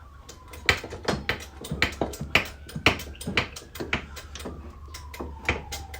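A hammer tapping repeatedly on a car's quarter-panel sheet metal to work out a dent, about three sharp uneven blows a second. A faint tone slowly falls and then rises in pitch behind the blows.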